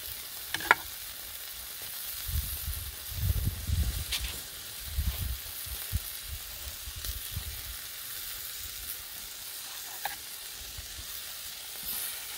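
Tri-tip steaks sizzling steadily on a hot Blackstone flat-top griddle, searing over high heat. There is a sharp click less than a second in, and some low rumbling a few seconds in.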